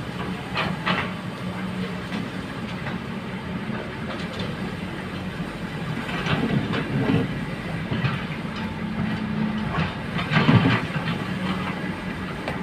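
Hydraulic excavator at work: its diesel engine runs steadily under load, with a few louder metallic clanks and scrapes from the machine about a second in, around six to seven seconds, and near ten and a half seconds.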